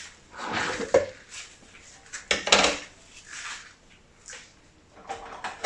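Kitchenware being handled: metal utensils clinking and scraping against dishes in a handful of short, separate bursts, with a sharp clink about a second in and the loudest clatter about two and a half seconds in.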